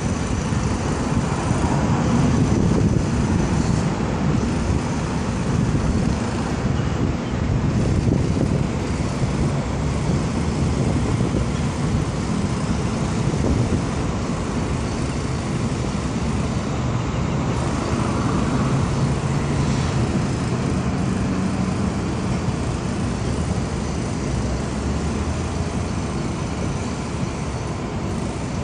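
Steady rumble of road traffic, with a deeper engine hum swelling for a few seconds a little past the middle.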